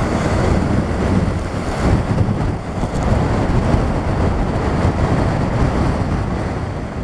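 Storm surf breaking against a rock seawall, a steady churning wash with strong wind buffeting the microphone.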